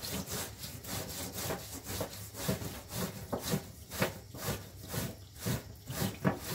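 Burdock root being scrubbed with a metal scrubbing pad: a rasping rub in rhythmic back-and-forth strokes, about two to three a second.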